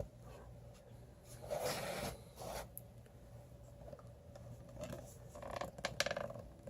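Plastic action figure being handled: brief scraping and rubbing of plastic in the hands, once about a second and a half in and again near the end, with a few light clicks.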